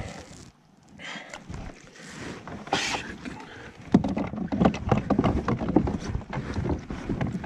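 Handling noise of a largemouth bass being gripped and lifted inside a plastic kayak: a few rustles, then from about four seconds in a rapid run of knocks and rattles against the hull and gear.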